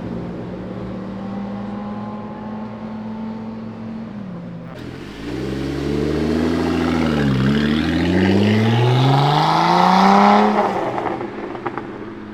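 A car engine accelerating hard as it pulls away. After a few seconds of steady running it gets louder, the revs dip briefly about seven seconds in, then climb steeply to a peak near ten and a half seconds before fading as the car drives off.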